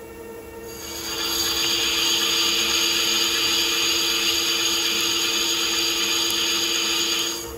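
CNC lathe turning steel with an Iscar WNMG carbide insert: the squeal of the cut sets in about a second in, holds steady, and stops abruptly near the end. The lathe's steady low hum runs underneath.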